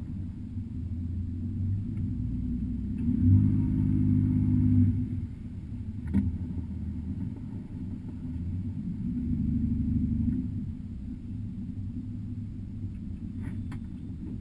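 Wooldridge aluminium jet boat's engine running at low speed, its note swelling briefly as the throttle is raised, about three seconds in and again around nine seconds. A single knock sounds about six seconds in.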